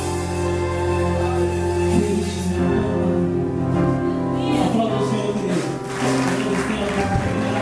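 Live gospel worship band music: long held chords for the first couple of seconds, then the band playing on with new notes coming in.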